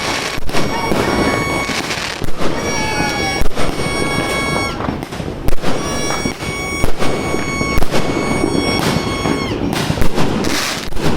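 Fireworks going off in quick succession, many sharp bangs over a continuous crackling rumble. Several steady high whistling tones, each held for a second or two, sound over the bangs; a few dip in pitch as they end.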